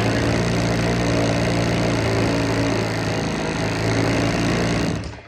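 Husqvarna 50 two-stroke chainsaw engine running at a steady speed. Near the end it is shut off and quickly runs down. The saw has low compression after sitting for years.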